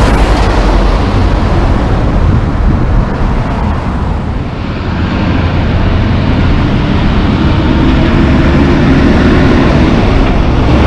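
Heavy diesel traffic passing close: Volvo semi-trucks and a school bus, with engine rumble and tyre roar. In the second half an engine note climbs slightly in pitch as the next truck pulls closer.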